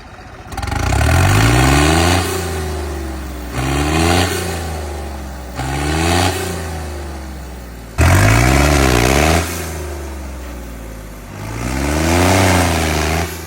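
Diesel tractor engine, a New Holland 3630 with a modified fuel-injection pump, revved hard five times, each time climbing quickly in pitch and then falling back toward idle.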